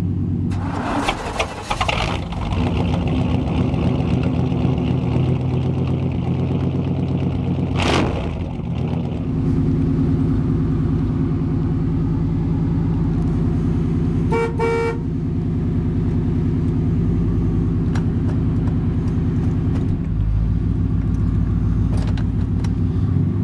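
1991 Chevrolet Silverado's 350 (5.7 L) V8 idling steadily just after a cold start, heard from inside the cab. A brief two-pulse beeping tone sounds about two-thirds of the way through.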